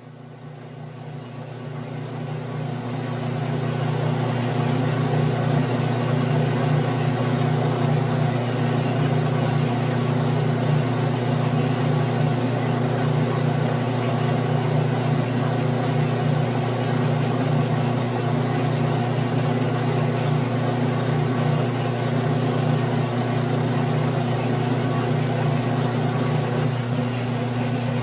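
Grizzly G9972Z bench lathe running steadily, its motor and drive humming as a tool cuts a piece of 6061 aluminum. The sound fades up over the first few seconds, then holds.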